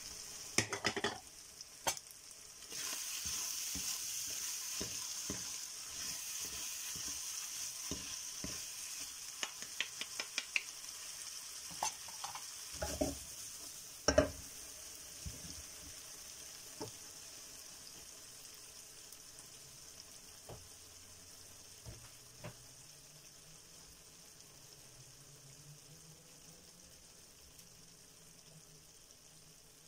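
Ground pork sizzling as it fries in a nonstick pan, with a wooden spoon scraping and knocking against the pan as it is stirred. There is a sharper knock about halfway through, then the sizzle carries on alone and slowly dies down.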